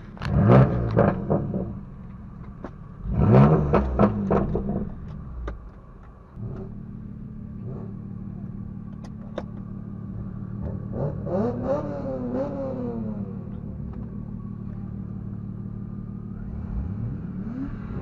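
Car engines revving loudly twice in the first few seconds, then a steady engine drone with a couple of rising revs, heard from inside a car's cabin.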